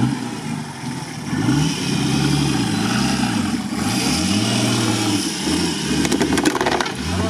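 Off-road SUV engine revved up and down repeatedly, about once a second, as the 4x4 climbs out of a steep ditch under load. There is a brief rattle a little after six seconds in.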